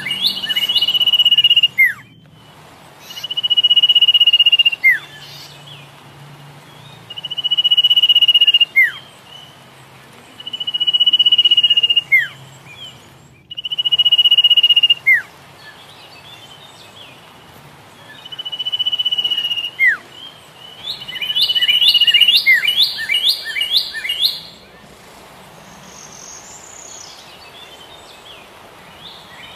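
Recorded birdsong: a songbird repeats a long steady high whistled note that ends in a quick falling slur, about every three and a half seconds, with bursts of fast chirps at the start and again around two-thirds of the way through, then softer calls near the end.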